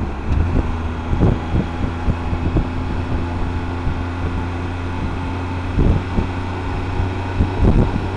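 Motorcycle engine running at a steady cruise, its pitch holding constant, with wind rushing over the helmet microphone and a few brief thumps.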